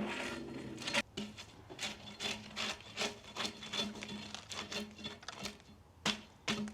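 Repeated scraping strokes, about two or three a second, over a faint steady hum.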